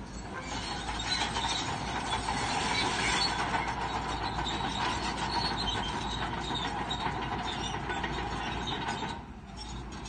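Crawler bulldozer working, its steel tracks squealing and clanking over the engine's running. It drops off briefly about nine seconds in.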